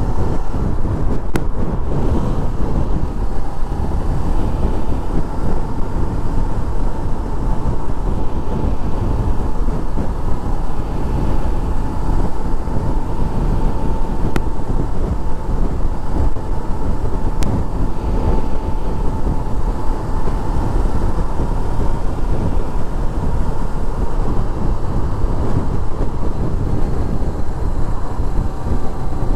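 Honda sport motorcycle cruising steadily at about 45 mph: engine running under a heavy rush of wind and road noise, with a faint steady whine.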